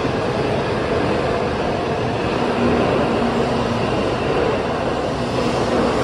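N700A Shinkansen train running past on the next track: a steady rush of wheel and running noise, with a low hum that comes and goes.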